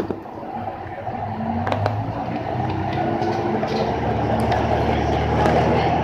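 Diesel railcar's engine throttling up as the train pulls away from a standstill, a low drone that grows steadily louder over the first few seconds, with a few faint clicks.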